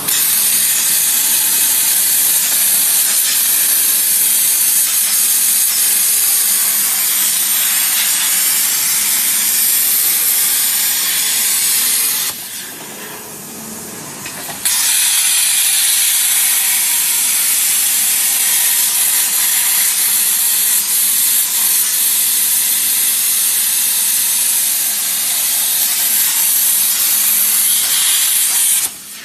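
CNC plasma cutter torch cutting a metal sheet, its arc giving a loud, steady hiss. The arc cuts out for about two seconds midway between cuts, then starts again and stops near the end.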